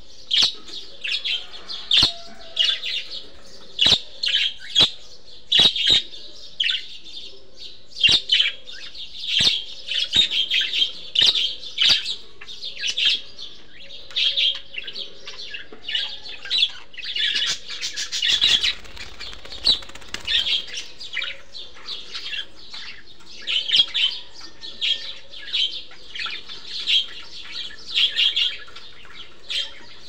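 A group of budgerigars chirping and chattering in short, quick, high calls, with sharp clicks between them. The calls thicken into a busier flurry about halfway through.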